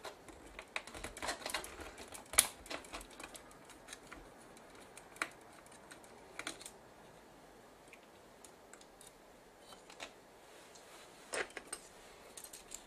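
Irregular clicks and taps of small plastic and metal parts of a Sony PMW-EX1 camcorder being handled during disassembly. They come in a busy run in the first few seconds, go quiet for a while, then pick up again near the end.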